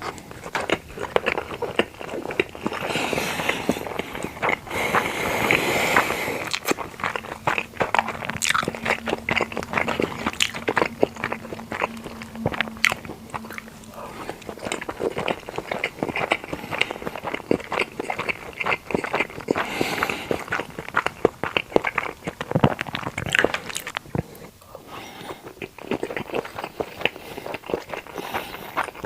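Close-miked eating sounds of a person biting and chewing sushi, with a dense run of quick clicks and smacks from the mouth.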